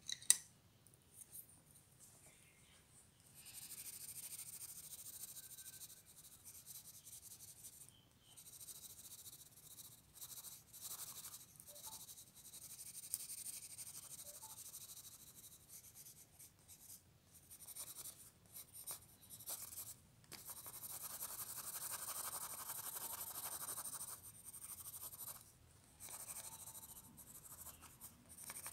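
Blue coloured pencil scratching across paper in shading strokes, coming in stretches of a few seconds with short pauses between them. A sharp click at the very start.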